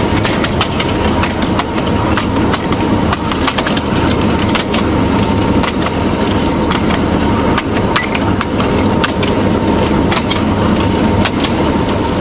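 TU7A narrow-gauge diesel locomotive under way, its V12 diesel engine running steadily, with irregular clicks and clacks of the wheels over the rail joints and a thin steady tone running through it.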